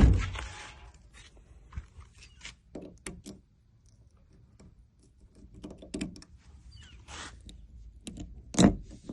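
A loud thump at the very start, then scattered clicks, knocks and rustling of handling, with a louder knock near the end.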